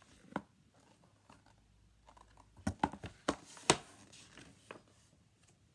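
Light taps and clicks from a picture book being handled and its pages turned, one early tap and then a cluster of them about three to four seconds in.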